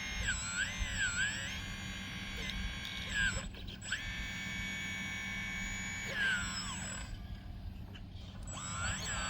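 Hydraulic pump motor of a scale RC hydraulic excavator whining, its pitch dipping and rising again and again as the controls are worked and the load comes on and off. The whine cuts out briefly about three and a half seconds in.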